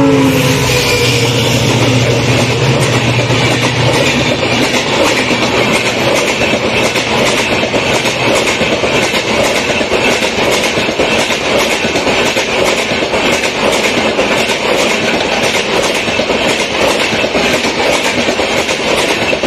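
The horn of a WDP4D diesel locomotive passing at full speed trails off with a falling pitch, and its low engine note fades over the first few seconds. Then a long rake of passenger coaches rushes past, loud and steady, with rapid wheel clatter.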